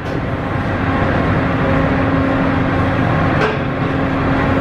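Steady low drone of a car ferry's engines and machinery with a constant hum, heard on its enclosed vehicle deck, and a single sharp knock about three and a half seconds in.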